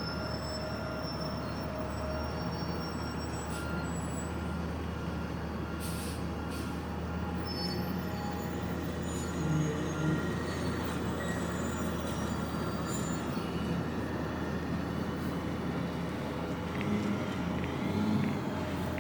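Garbage truck's diesel engine running steadily, with occasional sharp clanks and short metallic squeaks over it.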